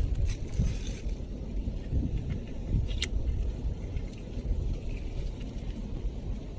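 Low, uneven wind rumble on the microphone, with a few light clicks of coral rubble and shell fragments shifting as a rubber-gloved hand picks through them. The sharpest click comes about three seconds in.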